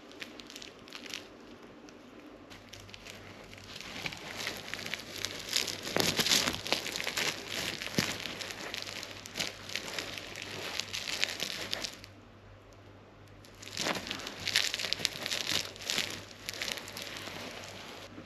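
Rustling and crinkling of bedding and a cat toy as a cat paws and pounces at it, in two long stretches with a short lull between.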